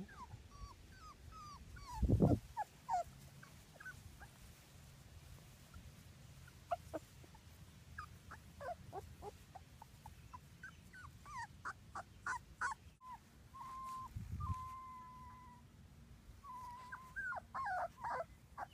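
Three-week-old black Labrador Retriever puppies whimpering and squeaking: many short, high-pitched cries in quick succession, with a few longer, steady whines in the second half. A low thump about two seconds in is the loudest sound, and a weaker one comes about midway.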